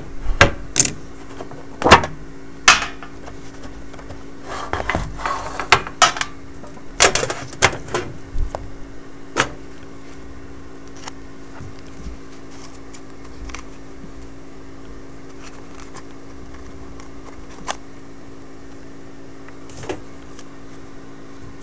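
Sealed trading-card box and its wrapping being opened and handled: sharp clicks, snaps and crinkles over the first ten seconds or so, then only a steady hum.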